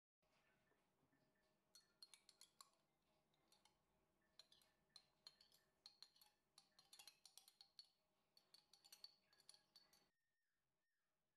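Faint clinks and taps of a metal spoon against a stainless steel bowl as plain yogurt is spooned in, many quick strikes with a short metallic ring that stop about ten seconds in.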